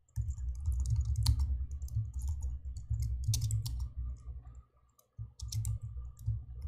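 Computer keyboard typing: rapid keystrokes, each with a sharp click over a dull thud, with a short pause about five seconds in.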